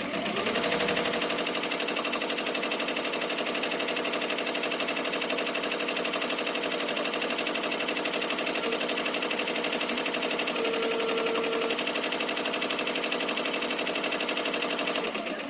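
Multi-needle embroidery machine stitching at speed: a steady, rapid mechanical clatter of the needle punching many times a second. It starts up at the beginning and stops near the end.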